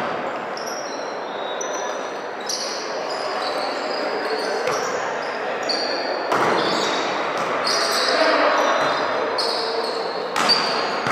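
Indoor volleyball match: ball hits and sneaker squeaks on the court over steady crowd chatter and shouts in a large hall. The sharpest hit comes near the end.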